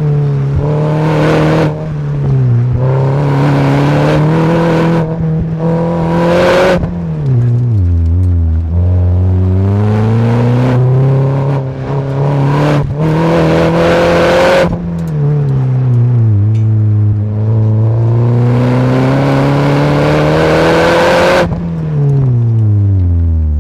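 Mini's engine under hard acceleration and lifting off through an autocross course, its note climbing and dropping again and again. Rushes of wind noise come and go over the body-mounted camera, and the engine winds down steadily near the end.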